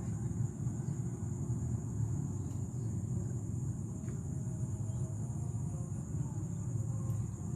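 Steady low rumble under an unbroken high-pitched drone of insects, with a few faint clicks.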